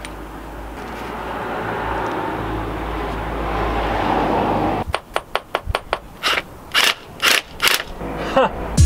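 Cordless impact wrench hammering on a wheel nut, building for about five seconds and cutting off suddenly, then a run of short sharp clicks and knocks.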